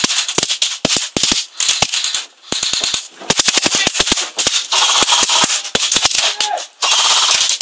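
Airsoft guns firing at close range in rapid bursts of sharp cracks, several a second, with a short break a little over two seconds in.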